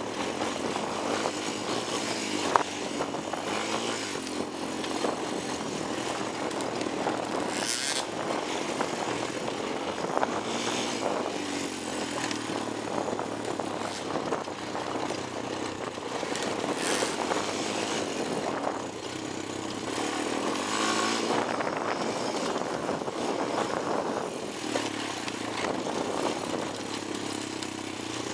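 Honda 250EX ATV's single-cylinder four-stroke engine running under way on a rough dirt trail, its revs rising and falling with the throttle. A few sharp knocks, about 2.5, 8 and 17 seconds in, as it crosses bumps and rocks.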